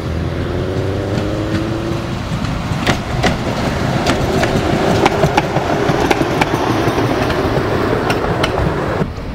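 Tatra T3 tram running past on its rails: a whine rising slightly in pitch at first, then a growing rumble with a dozen or so sharp clicks of the wheels over rail joints as it comes alongside. The sound cuts off abruptly near the end.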